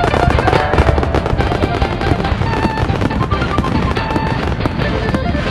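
Background music with a rapid, dense run of firework bangs and crackles mixed in under it.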